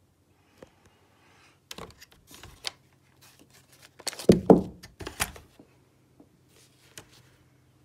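Handling noise from a 3D-printed carbine kit on an airsoft pistol being moved about on carpet: scattered clicks and knocks, with a heavier thud about four and a half seconds in.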